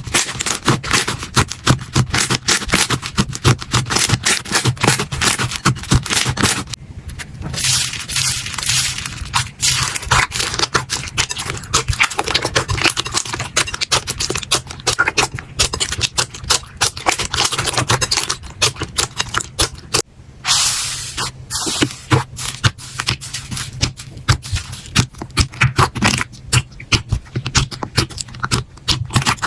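Slime being squeezed and poked by hand: a dense run of small clicks, pops and crackles, with two shorter stretches of softer, hissing squish about a quarter and two-thirds of the way through.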